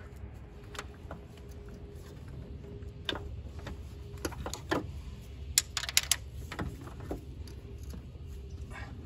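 Scattered plastic clicks and taps of gloved hands working a stiff electrical connector clip on a Mazda Miata's ignition coil pack, with a quick cluster of sharper clicks about six seconds in.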